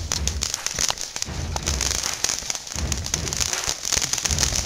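Ground fountain firework spraying sparks: a dense crackling hiss, with a low rumble swelling and fading every second or so.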